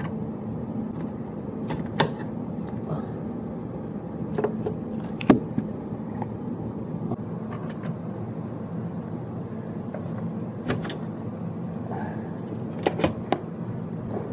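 Scattered sharp clicks and knocks of metal parts as the dishwasher's door hinge and support linkage is worked loose and unhooked by hand, over a steady low noise. The loudest knock comes about five seconds in, and two quick clicks come near the end.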